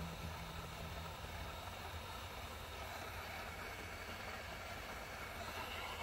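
Handheld electric heat gun running, its blower giving a steady hiss and hum while it shrinks heat-shrink tubing over a wire joint.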